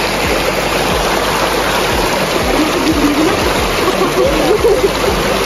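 Shallow rocky stream running steadily over stones around people wading through it, a continuous rushing of water. Faint voices come through the water sound about halfway through.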